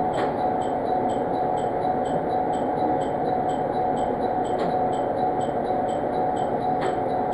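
Steady running noise inside a diesel railcar rolling slowly: a hum with one held mid-pitched tone and a faint high tick repeating about two to three times a second. A few light knocks come about a second in and near the end.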